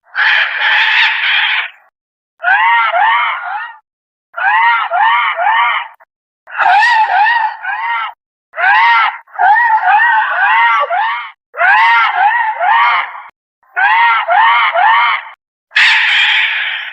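Giant monster-bird sound effect: a series of shrill squawking calls, each a quick run of three or four rising-and-falling honks, repeating about every two seconds with silence between. The first and last calls are a harsher, noisier screech.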